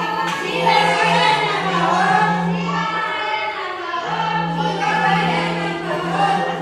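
A group of women singing a devotional song together during a puja, over a steady low hum that drops out briefly about halfway through.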